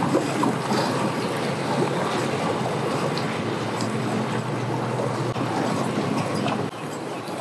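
Sea-Doo Fish Pro personal watercraft running at idle speed as it moves off from a dock, its engine steady and water churning at the stern. The level drops suddenly a little before the end.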